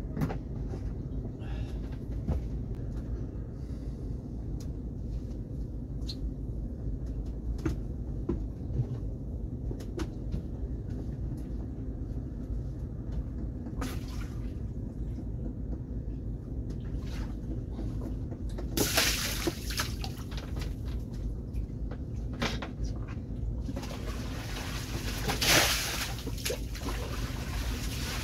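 Seawater sloshing and splashing against a sailboat's hull at anchor, with scattered knocks and clicks. Heavier splashes come in about two-thirds of the way through, over a steady low rumble.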